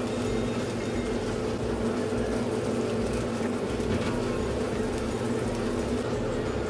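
Steady hum and rush of a working commercial kitchen, with a few steady low machine tones that do not change.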